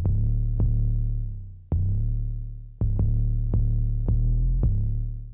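Electronic outro music: deep sustained synth bass notes, each started by a sharp hit, dying away and cutting off at the end.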